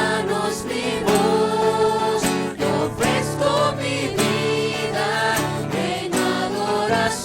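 Christian worship song: voices singing a melody over steady instrumental accompaniment.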